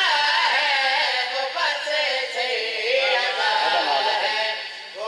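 A man's voice chanting devotional verse into a microphone in a slow, melismatic melody, holding long wavering notes through an amplified sound system. The chant dips briefly for a breath near the end.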